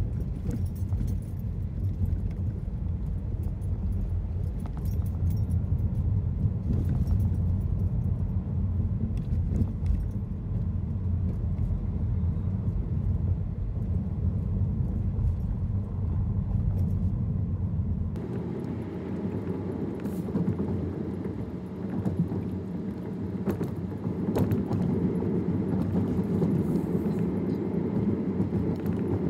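Car cabin road noise while driving: a steady low rumble of engine and tyres with scattered small rattles and clicks. About two-thirds of the way through the sound changes suddenly, the rumble becoming higher.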